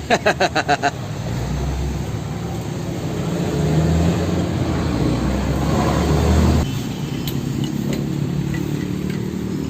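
Angle grinder with a cutting disc cutting steel, probably a high-carbon bolt. It is a steady grinding hum that builds, drops sharply about six and a half seconds in, and then runs on more quietly.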